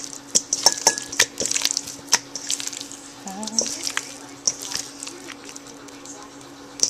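Hands rubbing spice mix into raw chicken thighs in a metal bowl: a run of sharp clicks and wet smacks of meat against the bowl, busiest in the first two seconds, sparser in the middle and picking up again near the end.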